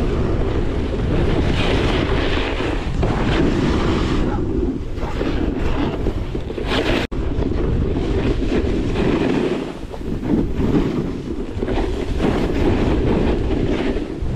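Wind buffeting the microphone of a camera worn by a snowboarder at speed, mixed with the board's edges scraping over firm, bumpy snow, coming in surges with the turns. The sound cuts out for an instant about halfway.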